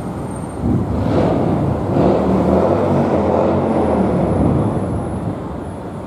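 Road vehicle passing: a low rumble that swells about a second in and eases off toward the end.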